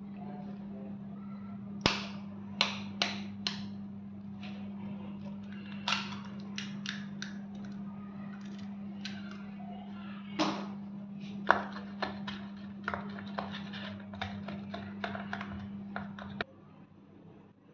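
A knife blade tapping eggs to crack them over a plastic cup in a few sharp clicks, then a spoon beating the eggs in the cup with quicker, uneven clicking near the end. A steady low hum runs underneath and stops shortly before the end.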